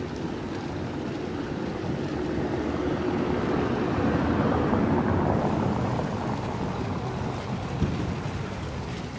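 A vehicle passing on the street: a rushing noise that swells to a peak about halfway through and then fades, with a short knock near the end.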